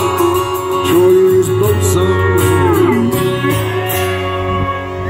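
Live country band music: an acoustic guitar strumming with a steel guitar sliding down between notes, the chords held near the end of the song.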